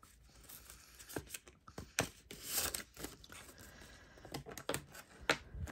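Cash envelopes and banknotes being handled: short rustles and small clicks as notes are taken out and moved between envelopes, with the longest rustle about halfway through.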